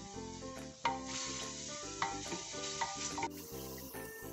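Chopped onion and ginger-garlic paste sizzling in hot oil in a clay pot, stirred with a wooden spoon, with three sharp knocks about one, two and three seconds in. Background music plays throughout.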